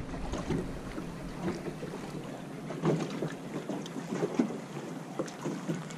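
Small waves slapping irregularly against a boat's hull, with wind rumbling on the microphone.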